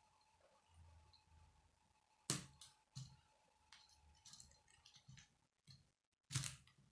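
Plastic K'nex rods and connectors clicking as they are handled and pressed together. There is a scattering of sharp clicks: the loudest comes about two seconds in, several lighter ones follow, and another strong click comes near the end.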